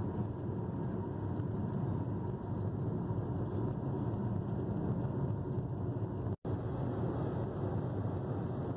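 Steady road and engine noise inside a moving car's cabin, cutting out for an instant about six and a half seconds in.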